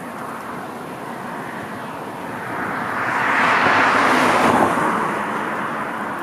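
Strong dust-storm wind rushing across open farmland. A gust swells to a loud peak about three to four seconds in, then eases off.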